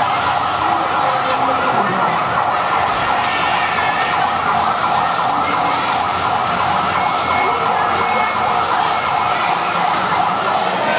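Electronic siren on a fire-truck play attraction, sounding continuously in a fast, even warble.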